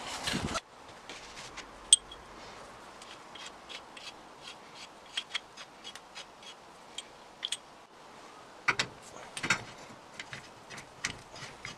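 Scattered light clicks and taps from a hand tool being handled, with one sharp click about two seconds in and a few louder knocks near the end.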